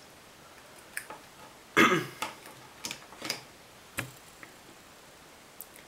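A few light clicks and taps of test leads and a handheld meter being handled, with one short vocal noise falling in pitch about two seconds in, the loudest sound.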